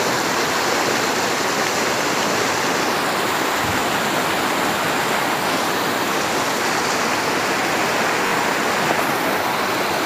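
Rocky mountain river rushing through shallow rapids around boulders: a loud, steady wash of white water.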